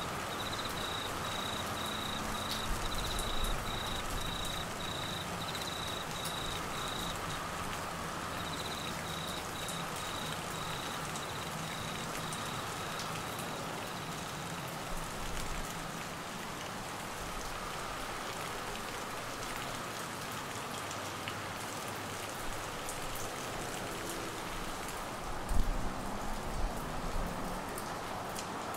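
Steady heavy monsoon rain falling on trees, grass and waterlogged ground. Through the first half a cricket chirps in a rapid pulsing trill, pausing once and then stopping about halfway through. A few low bumps come near the end.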